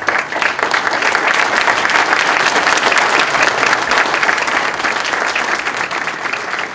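Audience applauding: many hands clapping at once, loud from the start and thinning a little toward the end.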